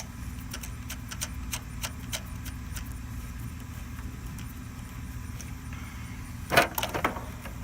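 Small irregular metallic clicks and clinks of a wrench working a 13 mm nut back onto the starter relay's cable terminal, with a louder clatter about six and a half seconds in, over a steady low hum.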